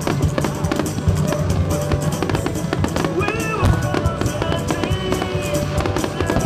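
Music with a steady drum beat and a melody line.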